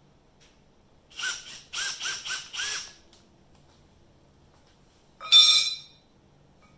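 Power drill driving a screw into a rear oil passage plug of a small-block Chevy 305 block, in five short trigger bursts whose pitch rises and falls, followed about five seconds in by one louder, shriller squeal of metal.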